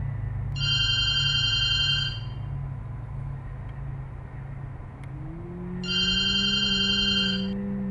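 A telephone ringing twice, each ring a trilling tone about a second and a half long with a pause of about four seconds between. A steady low hum runs underneath, and about five seconds in a low tone slides up and holds.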